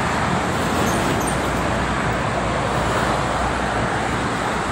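Steady traffic noise of cars, trucks and buses passing on a multi-lane toll road.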